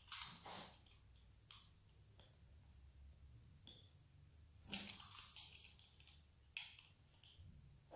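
A pizza cutter wheel being run through soft dough on baking paper: a few brief, faint scrapes and rustles, one near the start and two more about five and six and a half seconds in.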